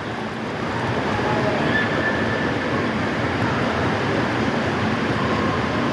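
Steady wash of splashing, rushing water with faint distant voices mixed in: the general din of an indoor water park.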